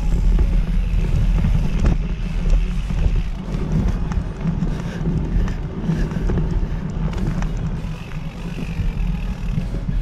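Mountain bike ridden along a dirt trail: wind buffeting the action-camera microphone over a heavy low rumble of tyres on the ground, with scattered clicks and rattles from the bike.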